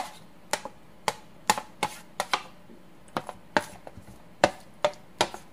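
Plastic spoon knocking and scraping on a stainless steel tray as chopped vegetables are pushed off it onto a plate: sharp, irregular clicks, about three a second.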